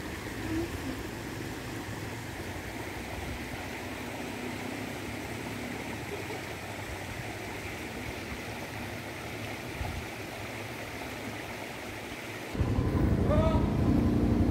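Shallow rocky stream running steadily over stones. Near the end it cuts abruptly to a louder motorcycle engine running at a steady pace.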